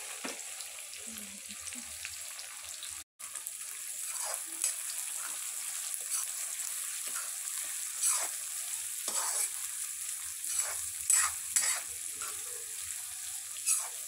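Sliced onions sizzling steadily in hot oil in an aluminium kadhai, frying down. From about halfway in, a ladle scrapes and knocks against the pan in several short strokes as the onions are stirred, loudest near the end; the sound drops out for an instant about three seconds in.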